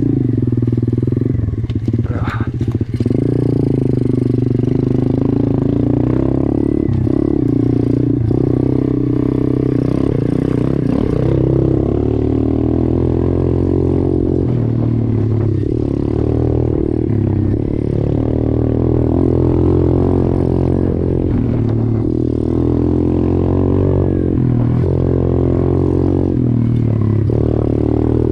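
YCF 125 pit bike's single-cylinder four-stroke engine running continuously, its pitch rising and falling with the throttle while riding a rough dirt trail. About two seconds in there is a short patch of clatter.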